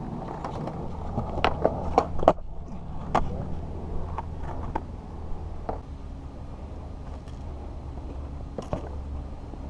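Skateboard wheels rolling on concrete, a steady low rumble with scattered sharp clicks and knocks, the loudest of them about two to three seconds in.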